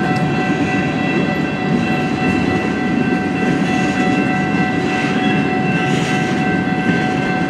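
A long CN freight train's cars rolling past, a steady rumble of steel wheels on rail with several steady high-pitched tones held over it.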